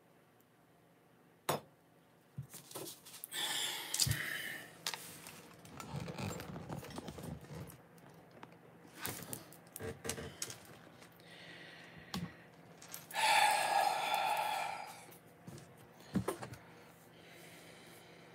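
Handling noise as a mug and a phone are moved about: a few sharp knocks and clicks, with stretches of rustling and scraping, the loudest about two-thirds of the way through.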